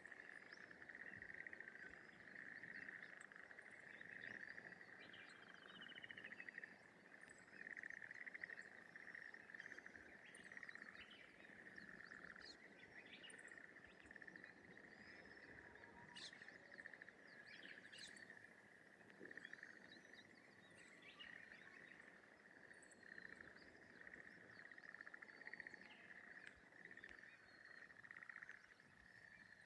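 Faint, continuous chorus of frogs calling from a rice paddy, a dense pulsing trill, with scattered short high bird chirps over it.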